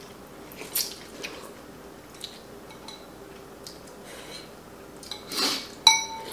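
People eating noodle soup: soft slurps of noodles and broth, the loudest about five seconds in. A spoon clinks once against a bowl with a short ring near the end.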